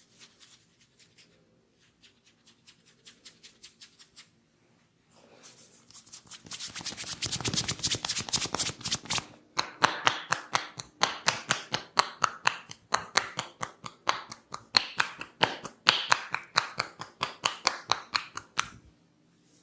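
Hands striking a head and body in quick, rhythmic massage strokes: a faint run at first, then much louder from about six seconds in, as a fast series of sharp slaps that stop shortly before the end.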